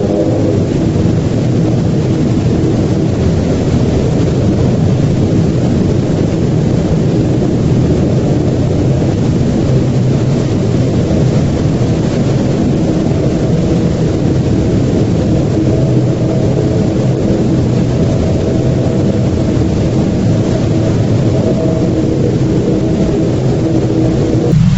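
Loud, steady low rumble with a few faint held tones above it, cutting off suddenly at the very end.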